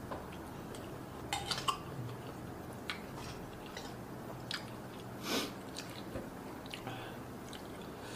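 Close-up chewing of a mouthful of curry noodles and prawn: soft, scattered wet mouth smacks and clicks, one slightly longer about five seconds in, over a low steady hum.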